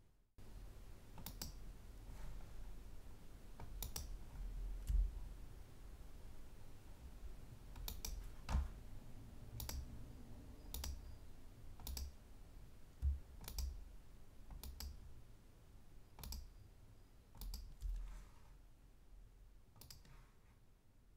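Computer mouse button clicking, single faint clicks spaced irregularly about one to two seconds apart, each placing an anchor point while drawing.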